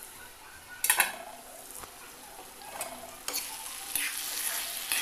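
Chicken and potato curry sizzling in an aluminium kadai while a metal spatula stirs and scrapes through it. There is one sharp metal clank about a second in, and the sizzling and stirring get louder from about three seconds in.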